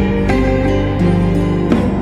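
Gentle instrumental background music with plucked-string notes, new notes struck every half second or so.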